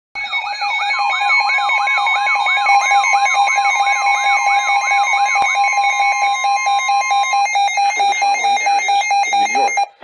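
Several NOAA weather alert radios sounding their warning alarms at once. Their rapid pulsing beeps overlap a siren-like tone that sweeps up and down about three times a second and a steady alert tone. The sweep stops about six seconds in and the steady tone a little later, and a broadcast voice begins faintly near the end.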